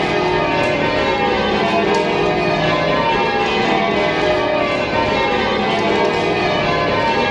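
The back eight of Gloucester Cathedral's twelve bells ringing full-circle: a dense, steady run of overlapping bell strokes with long hum-notes ringing on.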